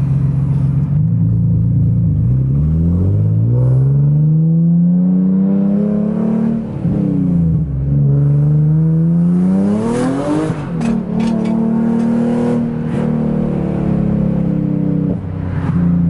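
Nissan 350Z's V6 engine heard from inside the cabin, pulling hard through the gears: the engine note climbs, drops back at each of several gear changes, then climbs again.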